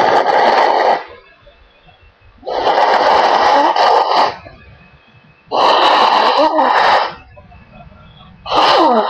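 A woman blowing her nose hard three times, each blow lasting over a second, with quiet breaks between. A shorter, wavering, pitched nasal sound starts near the end.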